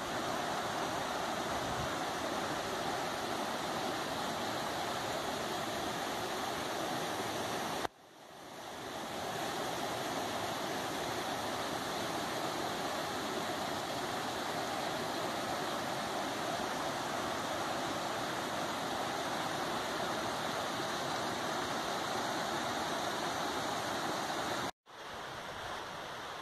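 Mountain stream rushing over rocks in small cascades: a steady, even rush of white water. It breaks off briefly twice, and after the second break, near the end, comes back quieter.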